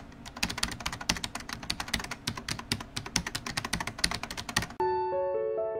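Rapid clicking of computer keyboard typing, used as a sound effect. It stops abruptly about five seconds in, as a few soft piano notes begin.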